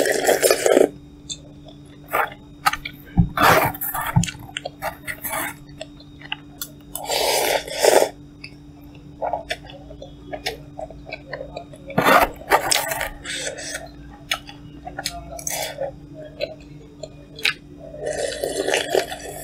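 Close-miked eating of Korean cup noodles: wet chewing with small clicks, and four louder slurps about a second long.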